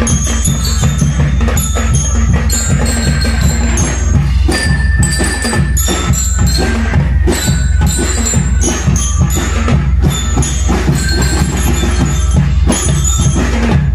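Drum and lyre marching band playing: metal bell lyres ring out the tune over a dense, rapid beat of drums.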